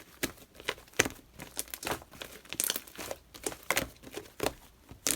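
Irregular crisp crinkling and crackling, about three sharp crackles a second, typical of something thin and stiff such as a wrapper being handled.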